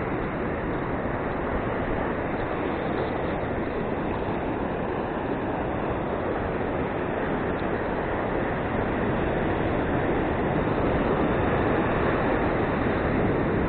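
Steady rushing noise of ocean surf on the beach, swelling a little louder about two-thirds of the way through.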